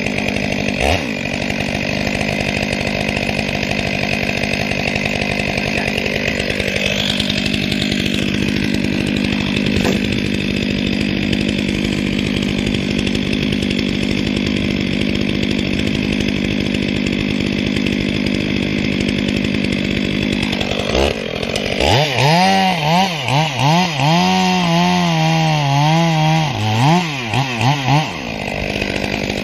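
Stihl MS 500i chainsaw, a fuel-injected two-stroke, running steadily and cutting wood. In the last several seconds its pitch wavers up and down repeatedly as the throttle is worked.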